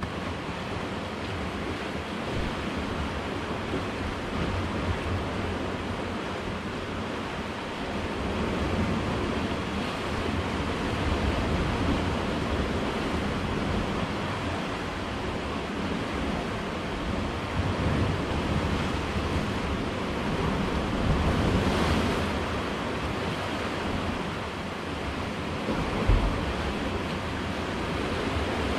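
Sea surf washing against a rocky shore, a continuous rush that swells and eases, with wind buffeting the microphone and a short low thump near the end.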